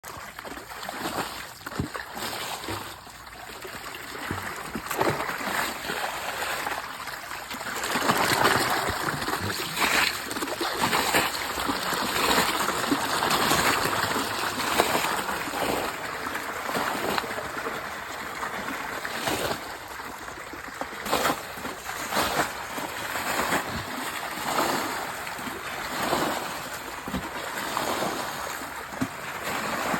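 Stream water running and splashing, with repeated splashes throughout, as water is washed over a gold-catching sluice carpet worked by hand.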